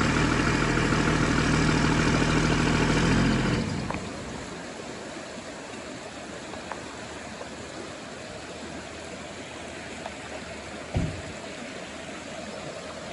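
A vehicle engine idling steadily, which cuts off about three and a half seconds in. After that, a steady wash of rushing floodwater from the overflowing creek, with one thump near the end.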